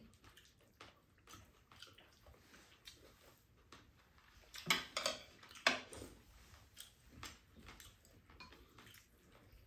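Table sounds of two people eating: spoons and chopsticks clicking and scraping against ceramic bowls, with faint chewing. A few louder short sounds about five seconds in.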